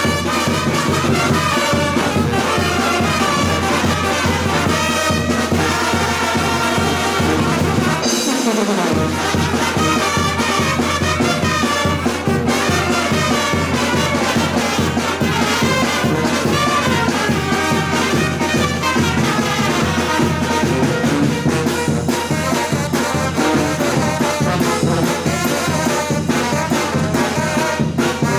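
Oaxacan brass band (banda de viento) playing, with brass over a steady beat. The lowest instruments drop out briefly about eight seconds in, then come back.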